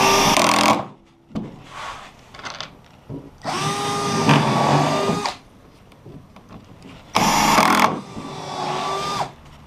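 Cordless drill running in four short bursts, each a steady whine, as it works into plywood.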